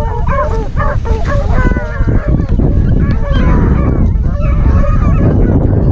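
A pack of beagles baying, many short overlapping calls: hounds giving tongue as they run a rabbit's scent trail.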